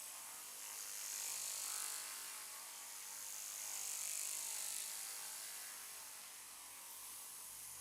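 Hands rubbing and kneading over hair and scalp in a head massage: a soft hiss that swells and fades about every two seconds, with no cracks or slaps.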